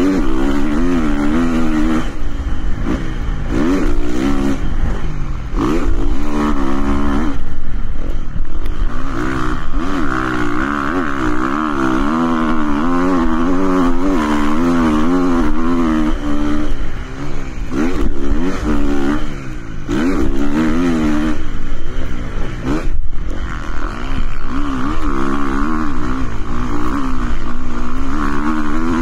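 KTM motocross bike engine heard from on board, its revs rising and falling over and over as it accelerates out of corners and along the straights. The throttle closes briefly a few times past the middle.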